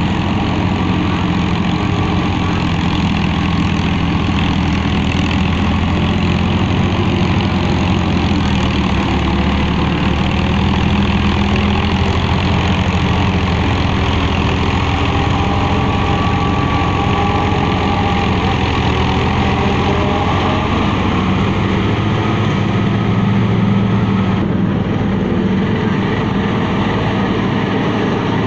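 Massey Ferguson 260 tractor's diesel engine running under load together with a tractor-driven forage harvester chopping silage. The drone is loud and steady throughout.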